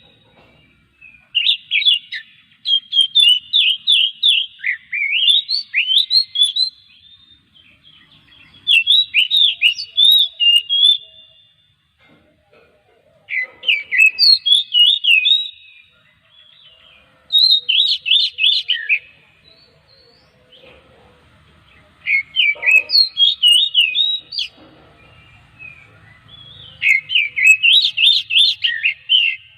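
Oriental magpie-robin (kacer) singing: about seven loud phrases of quick, sweet whistled notes sliding up and down, each phrase two to three seconds long with short pauses between.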